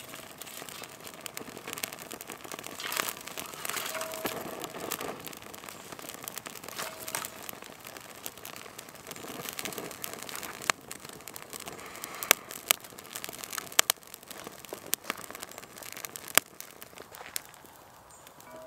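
Small kindling fire of twigs crackling as it catches, with sharp pops that come more often in the second half.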